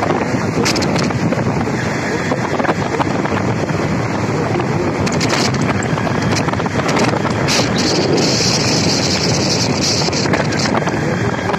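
Steady rush of wind buffeting the microphone on a moving motorcycle, with the motorcycle's running and road noise mixed in. A brighter hiss rises for a couple of seconds about eight seconds in.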